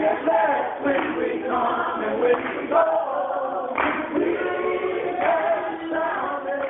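Gospel mass choir singing, many voices together in held chords, phrase after phrase.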